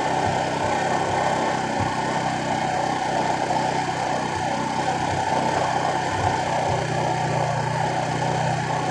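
Motorcycle engine running steadily at a low, even speed, with no change in pitch.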